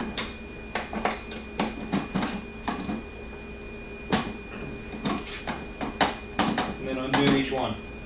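Scattered metallic clicks and clinks of a 6 mm hex wrench working the two mounting bolts inside a motorcycle saddlebag.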